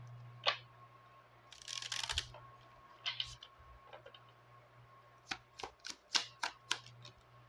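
A Lenormand (baralho cigano) deck being shuffled and handled: a short rustle about two seconds in, then scattered sharp card clicks and taps, over a faint steady low hum.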